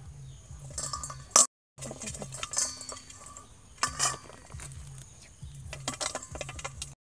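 Metal tongs clinking and scraping against a stainless steel bowl as they grab at live spiders, in a string of sharp clinks with the loudest about a second and a half in.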